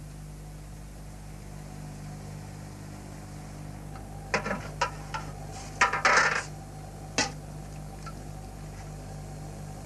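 A steady low electrical hum, with a handful of short clattering knocks and clicks between about four and seven seconds in, the loudest around six seconds.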